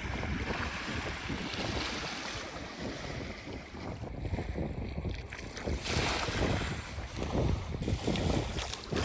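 Wind buffeting the microphone in uneven gusts, with waves washing at the water's edge.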